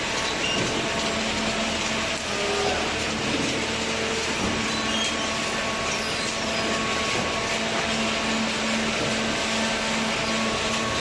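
Hydraulic waste-paper baler running as it bales shredded paper: a steady mechanical drone with a constant low hum.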